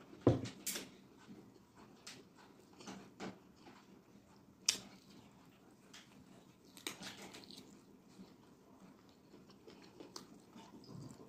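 Mouth sounds of eating fufu and egusi soup by hand: wet chewing and lip smacking with scattered sharp clicks, the loudest just after the start and again a little before halfway.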